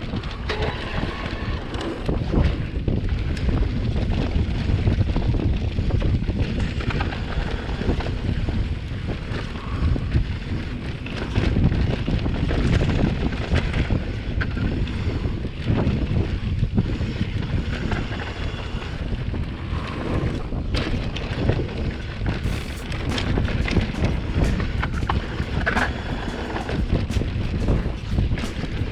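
Wind buffeting the microphone while riding a mountain bike on a trail, with a low, uneven rumble and scattered sharp rattles and clicks that grow more frequent in the last third.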